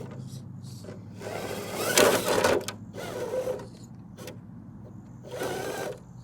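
RC crawler's electric motor and geared drivetrain running with a steady whine. Loud scraping, grinding bursts come from the truck working over terrain, one starting about a second in and peaking near two seconds, another shortly before the end.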